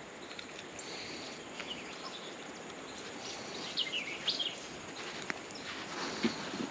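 Steady outdoor background hiss, with a few short bird chirps about four seconds in.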